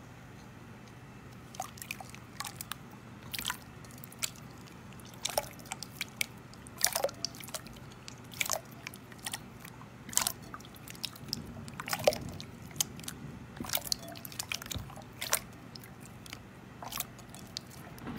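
Slime being squeezed and worked by hand, giving off irregular sharp pops and crackles, a few loud ones among many small ones.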